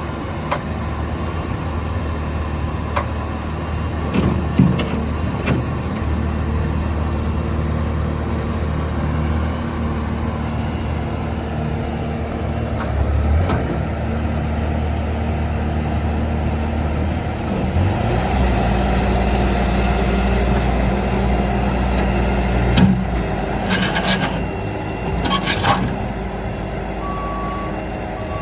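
Skid steer loader's diesel engine running steadily, its engine note rising about two-thirds of the way through, with a few knocks and clanks along the way. Near the end a back-up alarm starts beeping.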